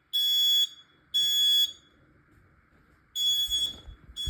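Smoke alarm's piezo horn sounding during a test: three loud, even beeps about a second apart, a pause, then the next group of three starting near the end. This is the standard temporal-three evacuation pattern.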